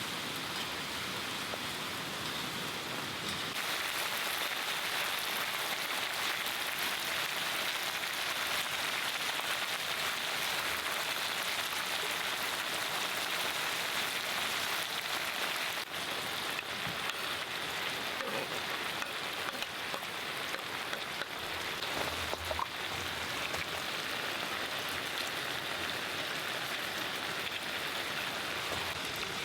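Steady rain falling, a constant even hiss that grows slightly louder about three seconds in.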